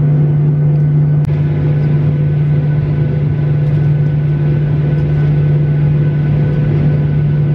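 Airliner cabin noise: a loud, steady drone with a strong low hum, from the engines and cabin air system. There is a single click about a second in.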